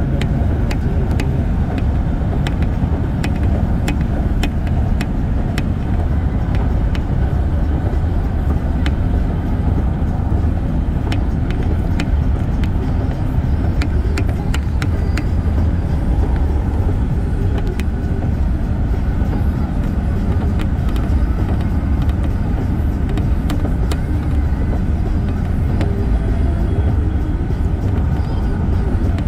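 Car driving at speed: a steady low rumble of tyre and wind noise, with scattered faint clicks.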